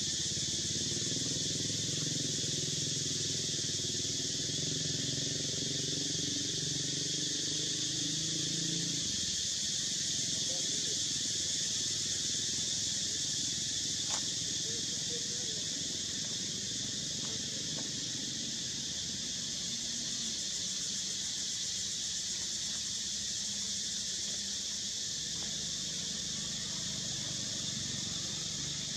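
Insects in the forest canopy droning steadily at a high pitch. A low, wavering rumble sits under the drone for the first nine seconds or so and comes back near the end.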